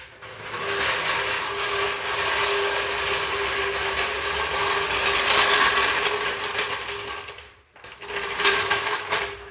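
Handheld power tool running steadily under load for about seven seconds, then stopping and running again briefly near the end.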